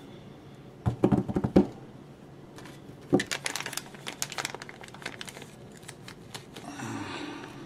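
Small clear plastic bag of heat-shrink tubing crinkling as it is handled and opened. A few sharp knocks on the workbench come about a second in.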